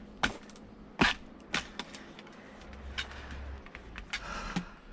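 Firewood splitting: a series of sharp wooden knocks and clunks, the loudest about a second in, with smaller knocks scattered through the rest.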